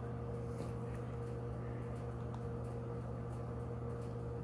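Steady low electrical hum from a running appliance, with a few faint clicks over it.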